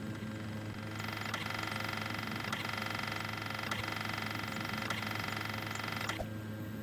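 Rusty Samsung washing machine running: its drum motor whines for about five seconds with a sharp click roughly every second and a bit, then stops. A steady electrical hum runs underneath throughout.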